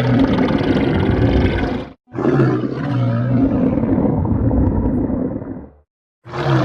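Loud, low stomach growling: a rumbling growl that cuts off about two seconds in, a second long growl that fades out near the end, and a third starting just at the end.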